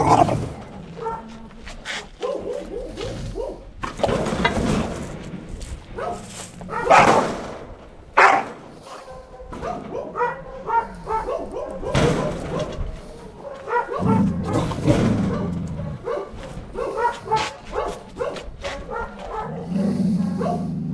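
A tied-up dog barking and whining in bursts at someone reaching toward it with a long pole to unhook its lead, with loud barks scattered through, the sharpest near the start and around 4, 7, 8 and 12 seconds in.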